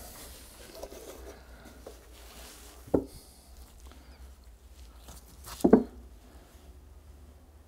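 Two short knocks, the second louder, from the oil funnel and oil container being handled against the power hammer's oil reservoir, with faint handling noise between them.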